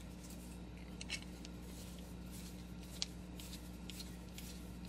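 Faint handling of a fountain pen in the hands: a few small clicks, the clearest about one second in and about three seconds in, over a steady low hum.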